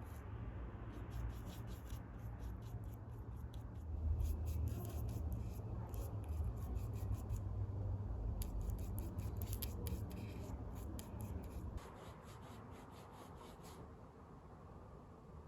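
Light scratching and rubbing made up of many short, quick strokes, over a low rumble. The rumble drops away about twelve seconds in.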